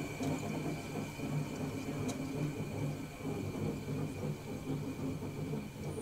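Window air conditioner running: a steady mechanical hum whose low drone wavers unevenly, with a constant faint high whine above it. There is a faint tick about two seconds in.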